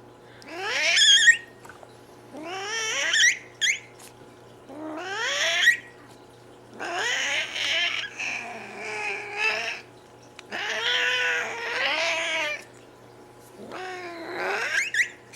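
Domestic cat vocalizing: three short rising squeaky calls about two seconds apart, then two longer wavering calls mixed with rough noise, and one more rising squeak near the end.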